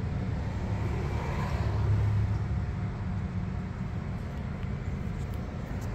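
Steady low outdoor rumble, swelling briefly about two seconds in.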